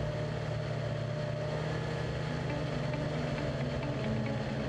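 Snowmobile engine running at a steady speed, heard on board the sled, a low even note with no change in pitch.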